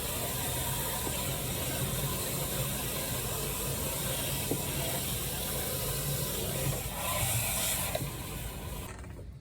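Water running steadily into a chicken waterer as it is filled, cutting off near the end.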